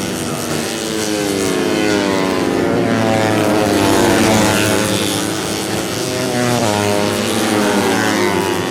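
A pack of 150cc four-stroke underbone race motorcycles running at high revs, several engine notes rising and falling over one another as the bikes shift and pass.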